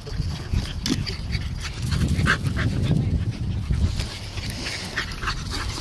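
Dogs at play giving short yips in brief clusters, over a low rumble on the microphone.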